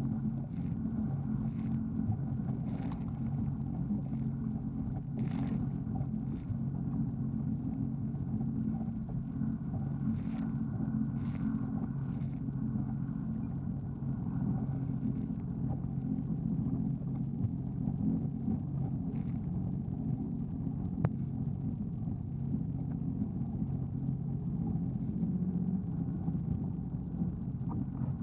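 Jet ski engine running steadily, with a few brief hits in the first half.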